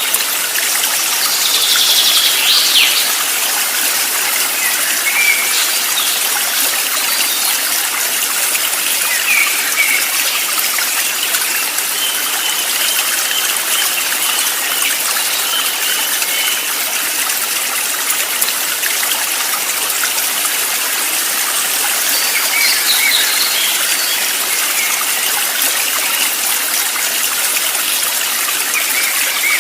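Steady rushing water of a stream, with a few faint bird calls over it now and then, one held as a longer thin whistle.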